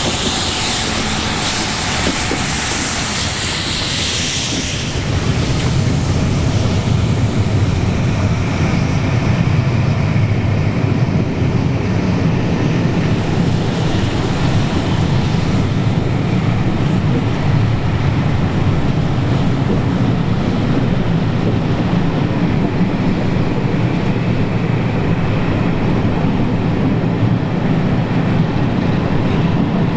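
Steam-hauled passenger train passing: LMS Black 5 4-6-0 No. 44871 with its coaches. Its steam hisses at first, then after about five seconds a steady low rumble of the coaches running over the rails takes over as the train draws away.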